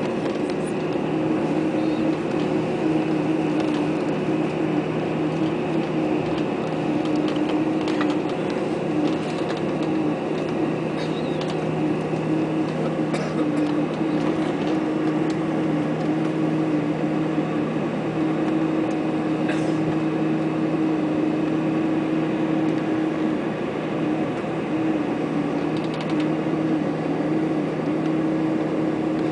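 Airbus A321 cabin with its CFM56-5B engines running at idle during taxi: a steady hum with a low drone and a slightly wavering tone, and no spool-up for take-off.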